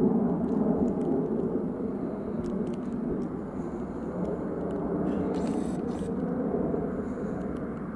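Boeing 747-400 airliner on short final and flaring for landing: the steady rumble of its four General Electric CF6-80C2 turbofans at approach power. It is loudest at the start and slowly eases off as the jet passes low and settles toward the runway.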